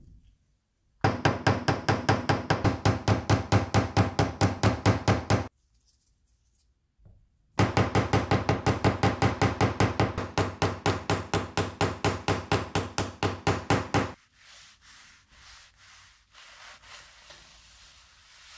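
A small hammer tapping rapidly and evenly on the screwdriver's thin sheet-metal ferrule over a small steel bench anvil, about five sharp metallic strikes a second, in two runs of several seconds with a short pause between. After that comes a much quieter rubbing: a paper towel wiping boiled linseed oil onto the wooden handle.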